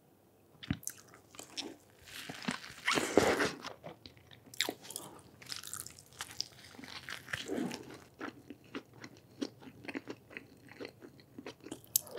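Close-miked bites into a McDonald's crispy breaded chicken burger and chewing, with crackly crunches from the fried coating. The crunching is loudest about two to three and a half seconds in, with more bursts later.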